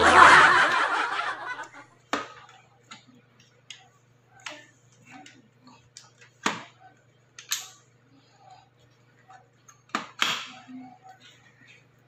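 An added sound effect that rises in pitch and fades over about two seconds opens, followed by scattered light clicks and knocks of plastic and metal parts as a handheld stick vacuum's metal extension pipe is fitted into its plastic body.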